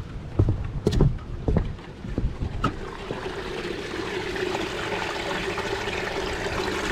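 Low, irregular thumps of wind buffeting the microphone for the first two seconds or so, then the steady rush of running water building from about three seconds in.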